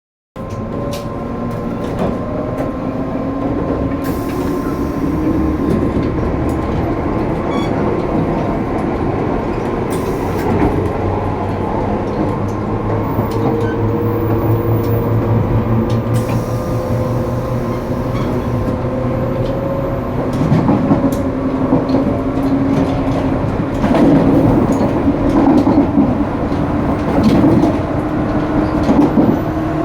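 Inside a 185 series electric train carriage as it pulls away: traction motor hum slowly rising in pitch as the train gathers speed, with running noise and scattered clicks and knocks from the wheels and car body.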